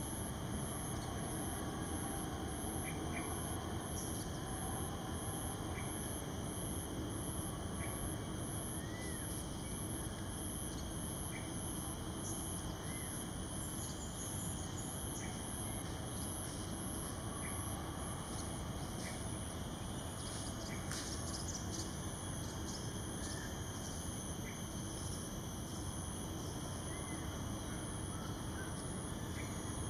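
Insect chorus with a high buzz pulsing a little more than once a second, turning steady about two-thirds of the way through, over a low rumble, with faint short bird chirps scattered throughout.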